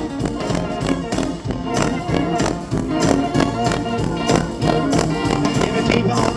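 Instrumental break of a blues song: a band playing with a steady drum beat and sustained melodic instrument lines, no singing.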